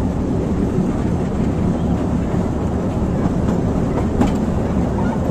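Narrow-gauge (600 mm) train running, heard from an open carriage: a steady rumble of wheels on the rails, with a few faint clicks.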